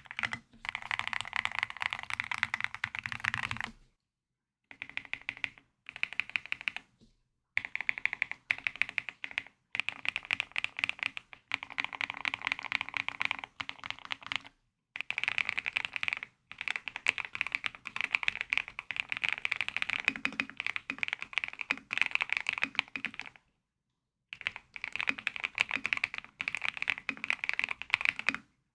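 Typing on a Heracles TKL mechanical keyboard: fast runs of key clicks and clacks, broken every few seconds by short silent pauses.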